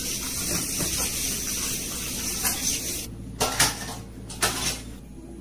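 A steady hiss, then a few sharp clinks of metal cookware and dishes being handled. The hiss cuts off about three seconds in, just before the clinks.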